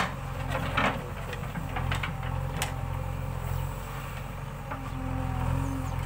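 JCB 3DX backhoe loader's diesel engine running steadily while the backhoe digs, with several short sharp scrapes and knocks from the bucket in the soil in the first few seconds.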